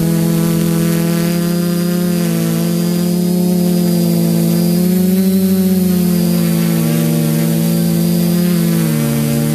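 Quadcopter's four Sunnysky 980kv brushless motors spinning 10x4.5 APC propellers in flight, heard up close from the onboard camera: a loud, steady buzz whose pitch drifts slightly up and down as the motors change speed.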